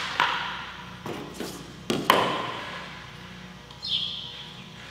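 Handling knocks on a thin aluminum aircraft wing: two pairs of sharp knocks, one at the start and one about two seconds in, each with a short metallic ring, then a brief light scrape near the end.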